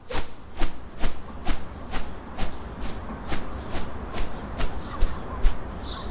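Footsteps on stone steps, about two a second, steady and evenly spaced, over a low rumble.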